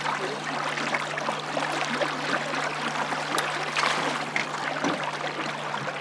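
River current rushing and lapping around a drift boat's hull: a steady splashy hiss full of small trickles and splashes.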